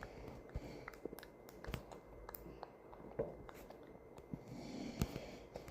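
Grandmother snoring softly, with one drawn breath about three-quarters of the way in, among scattered small clicks and taps.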